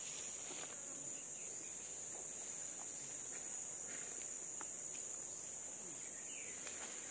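A steady, high-pitched drone of insects, unbroken throughout, with only a few faint soft clicks beneath it.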